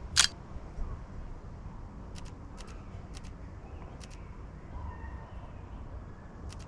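Fujifilm X-H2 camera shutter firing several times, each shot a quick double click, after one louder sharp click at the start, over a steady low outdoor rumble.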